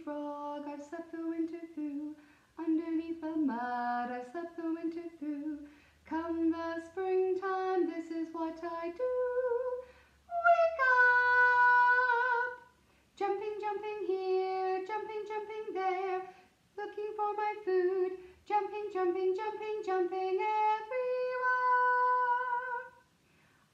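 A woman singing a children's song unaccompanied, in short phrases with brief pauses between them. Two notes are held long: the loudest about ten seconds in, and another near the end.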